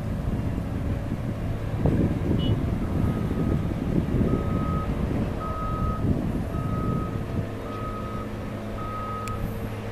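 A vehicle's reversing alarm beeping about once a second, starting about three seconds in, over a steady engine hum that rumbles louder through the middle.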